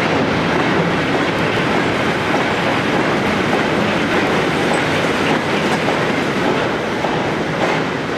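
Long rake of bogie engineers' wagons rolling past behind a diesel locomotive, a steady rumble with the wheels ticking over the rail joints.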